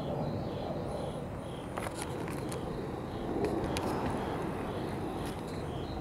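Outdoor street ambience: a steady low rush of background noise, with a faint high chirp repeating about twice a second and a few small clicks.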